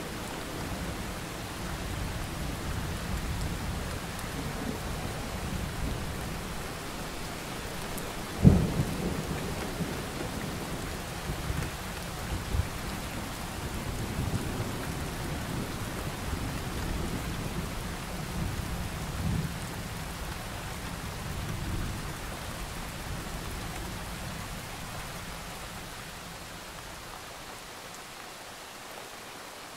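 Thunderstorm: steady rain with low rolling thunder, and a sharp thunderclap about a third of the way in that rumbles on. The storm eases and grows quieter toward the end.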